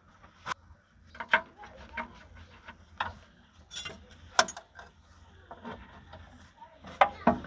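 Scattered sharp metallic clicks and clinks as a small metal fitting with a washer is handled and pushed into a hole in a tractor's hydraulic housing, with a couple of louder clinks near the end.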